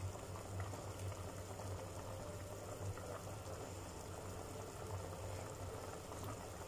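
Beef broth with potatoes boiling in a stockpot on the stove: faint, steady bubbling, with a low steady hum underneath.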